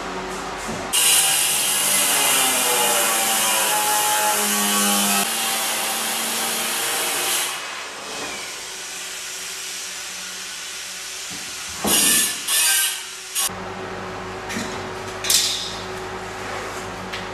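Angle grinder cutting into a sintered stone slab, a loud harsh grinding whose pitch shifts under load for about six seconds before it stops. Later come two short bursts of grinding, then a few brief scrapes.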